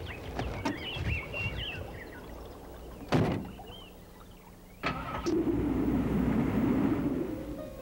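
Birds chirping, then a car door slams shut about three seconds in. A second knock near five seconds is followed by a steady low rumble.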